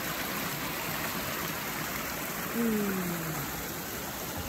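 Fast-running mountain river rushing steadily over rocks and fallen logs. A little past halfway there is a brief low hum that falls in pitch.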